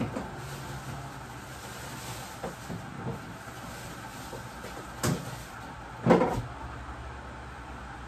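Kitchen clatter: a few light clicks, then two louder knocks about five and six seconds in, over a low steady hum.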